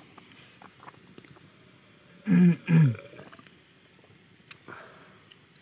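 Mostly quiet with faint handling ticks. About two seconds in, a person's voice makes two short sounds half a second apart, each falling in pitch.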